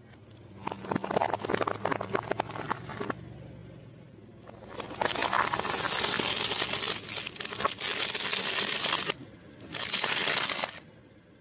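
A car tyre crushing crunchy food, with a rapid run of crackling snaps for about two seconds. After a short pause, a plastic bottle packed with food pieces crinkles and crunches under the tyre for several seconds, and a shorter burst of crinkling follows near the end.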